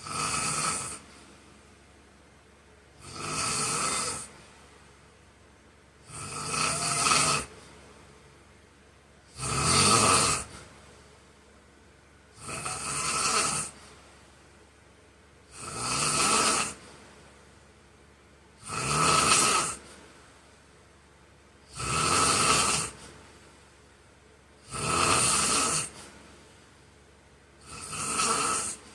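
A man snoring in his sleep: loud snores on a steady rhythm, one about every three seconds, each lasting about a second, with quiet breaths between.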